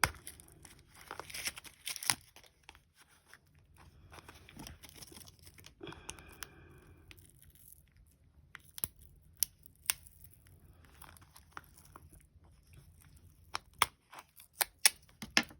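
Packaging being torn open and handled, rustling and crinkling, with scattered sharp clicks and snaps, the loudest in a cluster near the end.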